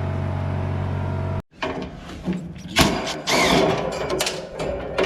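Steady low mechanical hum that cuts off abruptly about a second and a half in, followed by a series of irregular knocks and clattering.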